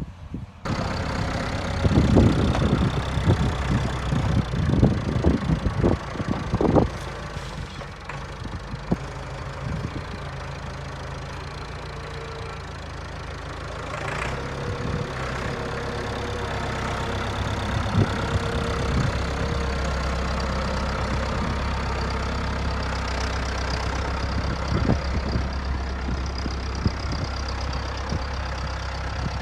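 An engine running steadily, with loud knocking and clattering in the first several seconds.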